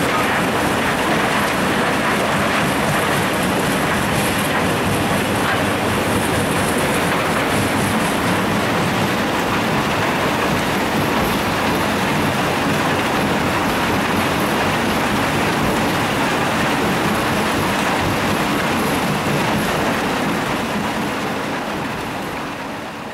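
Metso Nordberg LT125 mobile jaw crusher running under load, rock rattling and grinding through it along with diesel engine and conveyor noise in one steady, dense din. It fades out near the end.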